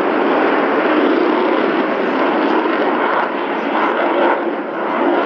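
Jet noise from a Sukhoi Su-35 fighter's twin turbofan engines in flight: a loud, steady rushing roar that barely varies.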